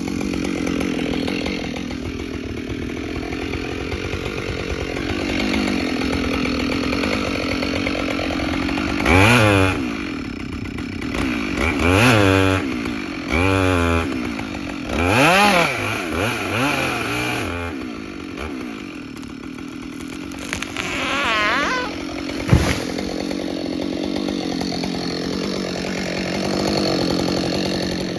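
Chainsaw running, its engine revved up and down several times in the middle, with one sharp knock about two-thirds through.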